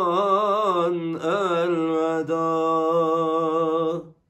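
A man's solo voice singing a Turkish ilahi (Islamic hymn) without accompaniment, drawing out long wavering melismatic notes with two brief breaks. It cuts off suddenly about four seconds in.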